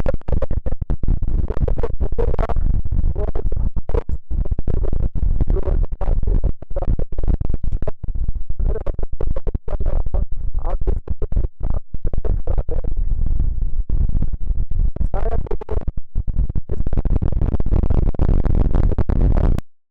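Strong wind buffeting the microphone: a loud, low rumble that keeps chopping in and out in quick gusts.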